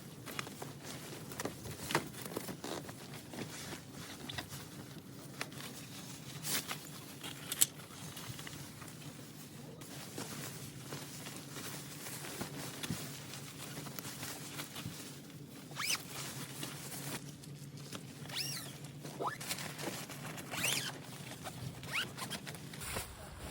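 Scattered clicks, taps and rustles of things being handled, with a few short scraping sweeps near the end, over a low steady hum.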